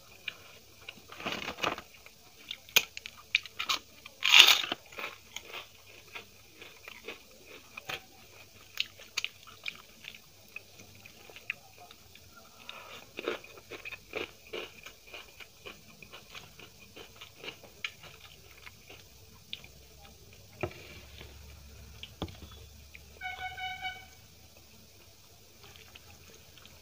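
Close-up eating sounds of a vegetarian Indian meal eaten by hand: chewing with many short crisp crunches, the loudest about four seconds in. A brief steady beep-like tone sounds once, near the end.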